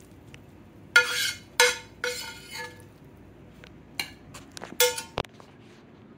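A metal serving spoon clinking against a stainless steel pan and a plate while dishing out food: four sharp, ringing clinks about half a second apart, then a quicker run of lighter taps and one more clink near the end.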